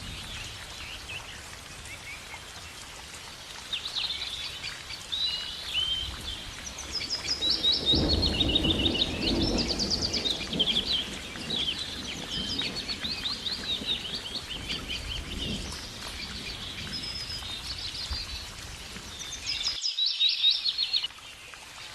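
Several songbirds chirping and trilling in quick overlapping phrases over a steady bed of outdoor noise. A louder low rush of noise swells about a third of the way in, and the background noise drops away suddenly near the end while the birds keep singing.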